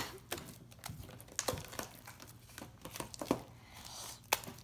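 Homemade milky slime of white glue and laundry detergent squeezed and kneaded by hand, giving irregular sticky squelches, clicks and crackles.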